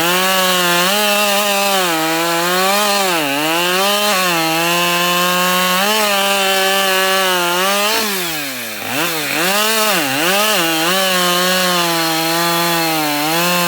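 Husqvarna 572XP two-stroke chainsaw running at full throttle while cutting wood, its engine pitch sagging under load and recovering a few times. About eight seconds in it drops almost to idle, then revs back up, dipping several times in quick succession.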